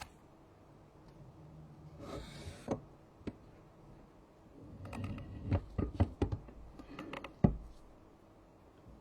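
Small objects handled on a work surface: a brief hiss about two seconds in, then a run of irregular clicks and taps ending in one sharper knock.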